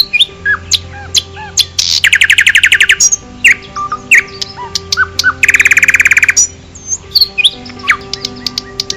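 Birds chirping and whistling, with short rising and falling calls throughout and two loud, fast trills of about a second each, near the start and in the middle, over a faint steady low hum.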